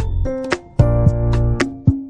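Background music: an upbeat tune with a bass line and sharp percussion hits, dropping out briefly about half a second in before starting again.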